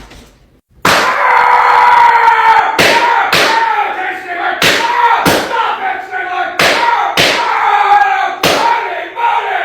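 A long, loud yell from a person's voice, starting about a second in, while sharp smacks land in pairs roughly every two seconds, like a cartoon beating.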